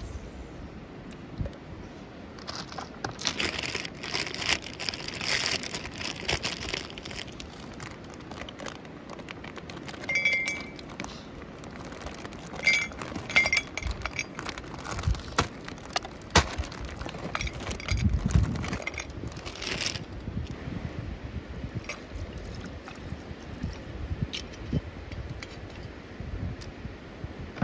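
Ice cubes dropped into a heavy glass mug, clinking and briefly ringing against the glass, with a plastic ice bag crinkling. Whisky is then poured over the ice.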